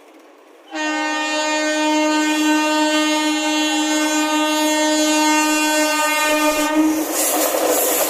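Electric locomotive's horn sounding one long steady blast of several tones at once for about six seconds as an express train approaches. It cuts off near the end as the locomotive reaches the crossing, and the rumble and clatter of its wheels on the rails takes over.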